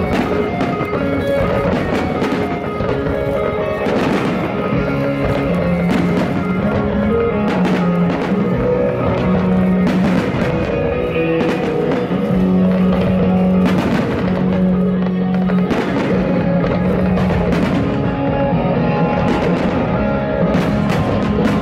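Loud music with a sustained bass line playing throughout, with sharp bangs of fireworks bursting at irregular moments.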